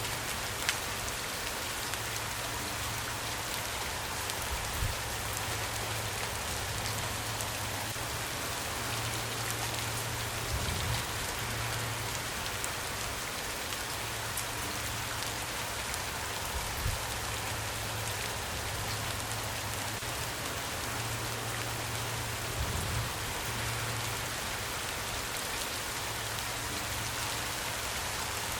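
Steady rain falling, a constant even hiss with separate drops tapping here and there.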